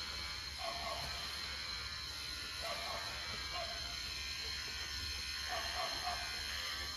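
Steady buzz of electric pet hair clippers, with a dog giving a few short whimpers.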